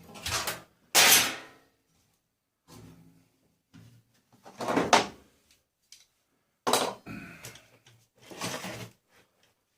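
Steel parts of an electric tumble dryer being pulled apart and handled, clattering and knocking in about five separate bursts with quiet gaps between, the loudest about a second in.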